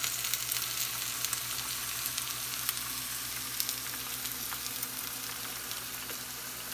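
Onions sautéing in a pan, sizzling steadily with scattered crackles and pops.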